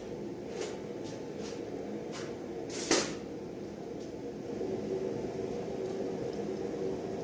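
Steady hum of the forge running while the workpiece heats, getting a little louder partway through. A few faint clicks and one sharp knock about three seconds in.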